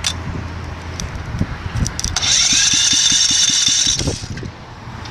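Small generator engine being started: irregular low firing thumps, with a loud high whine that rises about two seconds in and holds for about two seconds before dropping away.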